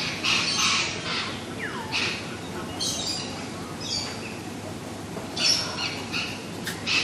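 Birds calling: a string of short, harsh squawks and chirps, irregularly spaced, with one falling whistled note a little under two seconds in. A steady low background hum sits beneath the calls.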